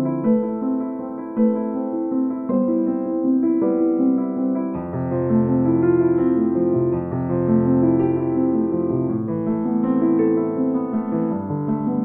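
Background piano music: a slow melody of held piano notes.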